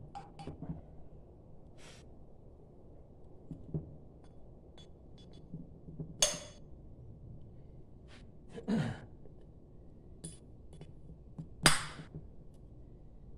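Light clicks and taps of metal engine parts being handled as new intake valves are fitted into a motorcycle cylinder head. Two louder short hissing sounds come about six and twelve seconds in, and a brief sound falls in pitch around nine seconds.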